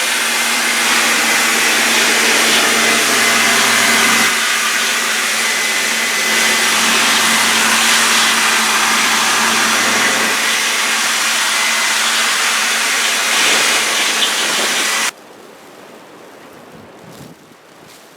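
A loud machine motor running steadily with a faint hum under it, cutting off suddenly about fifteen seconds in and leaving a much quieter rustling noise.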